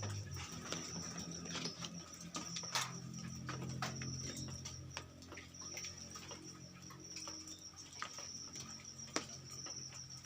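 Birds moving about in an aviary: scattered irregular ticks and taps, with a high thin chirring tone that comes and goes and a low steady hum underneath.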